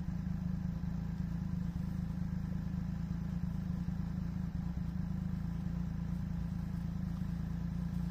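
Ski-Doo Grand Touring 1200 snowmobile engine idling steadily, a constant low hum with no revving.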